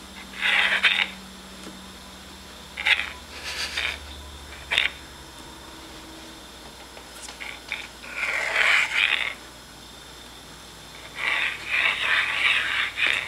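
A bottle cap skidding and clattering across the floor in short bursts, again and again, as it is tossed and batted back and forth. There are a few single sharp clicks among the longer scraping runs.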